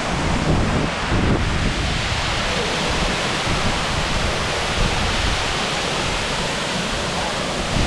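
Waterfall rushing as a steady, loud roar of falling water, with a few low bumps in the first second and a half.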